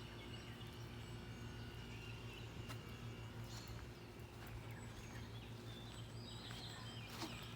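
Faint outdoor ambience: a steady low hum with scattered short bird chirps and a few light clicks.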